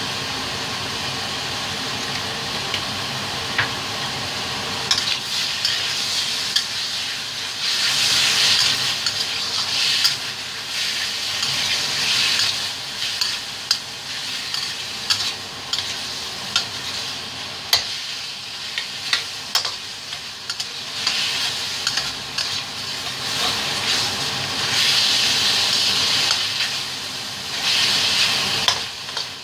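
Chicken pieces frying in a stainless steel wok, sizzling steadily while a spatula stirs and turns them. The sizzle swells in louder surges as the meat is turned, with sharp clicks and scrapes of the spatula against the wok.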